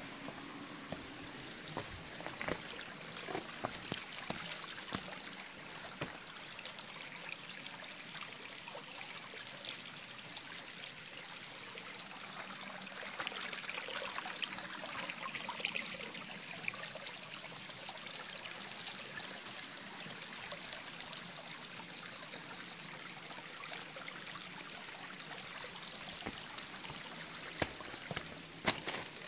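Small spring-fed stream trickling and splashing over rocks, louder for a few seconds around the middle.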